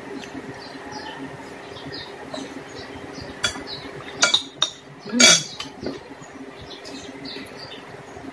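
Metal cutlery clinking against a plate, a handful of sharp clinks in the middle with the loudest a little past halfway, over a steady low hum.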